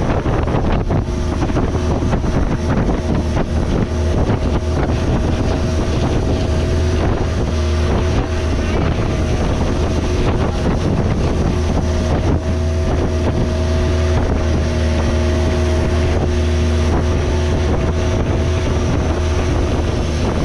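Long-tail boat engine running steadily, a constant low drone with wind noise on the microphone.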